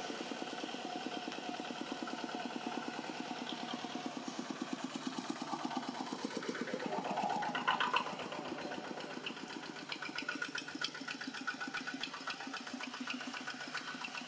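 An engine running steadily at an even idle-like pulse, with a short rising sound about seven seconds in.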